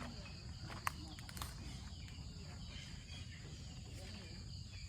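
Insects chirring steadily in a high, even drone over a low rumble, with a couple of short sharp clicks about a second in.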